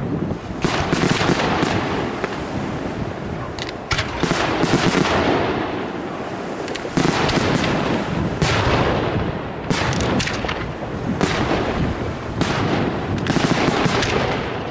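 Aerial firework shells of an Arigò Fireworks display bursting in quick succession: a near-continuous barrage of bangs with crackling between them, a sharp report every second or two.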